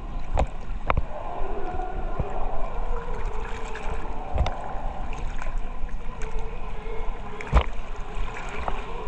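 Ocean water sloshing and lapping around a half-submerged camera at the surface, with several sharp knocks against it, the loudest about seven and a half seconds in.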